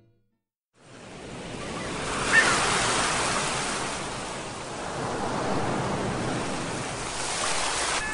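Ocean waves breaking and washing on a beach, a steady rushing surf that fades in after a second of silence and swells and eases. A short high cry cuts through about two and a half seconds in.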